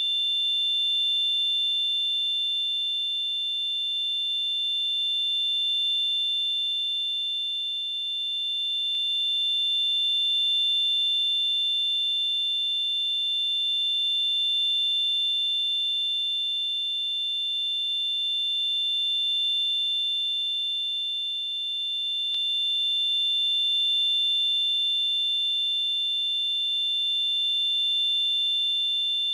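Simulated tinnitus ringing: two steady high-pitched tones close together in pitch, with a faint hiss above them. The level swells and eases slowly every few seconds.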